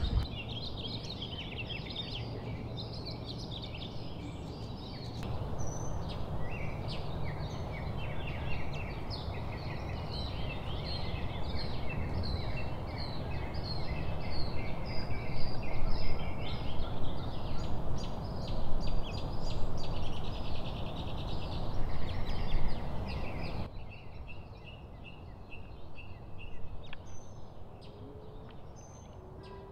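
Many small birds chirping and singing in a busy chorus, over a steady low rumble of wind on the microphone. About three-quarters of the way in, the sound drops to quieter, sparser chirping.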